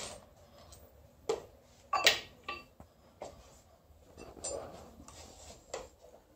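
Metal parts clinking and knocking as a starter motor and hand tools are handled and set down: a handful of sharp separate knocks, the loudest about two seconds in.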